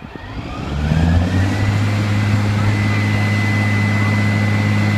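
Airport crash-rescue fire truck's diesel engine revving up about a second in, then holding a steady high-rpm drone with a steady high whine above it, as it drives the water pump feeding the roof turret's stream.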